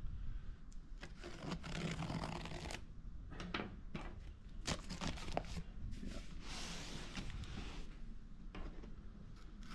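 A knife blade slitting the packing tape along the top seam of a cardboard box, with scraping and rustling of the cardboard and a few sharp clicks.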